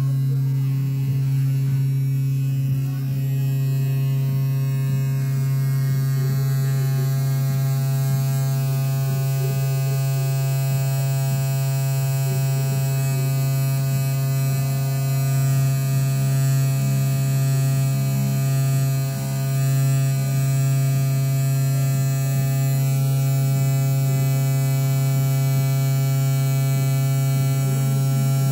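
Brushed DC motor spindle of a homemade CNC engraver running at a steady speed, a constant buzzing hum, while its pointed engraving bit cuts into a printed plastic card.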